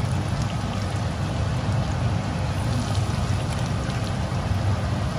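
Batter fritters deep-frying in a pan of hot oil: steady sizzling with small crackles and pops, over a low steady hum.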